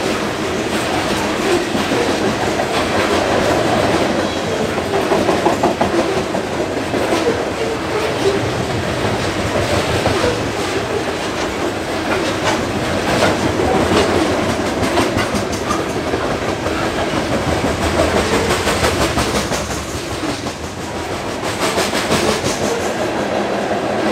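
Loaded coal hopper cars of a freight train rolling past, their steel wheels running on the rails with a steady din and many sharp repeated clicks.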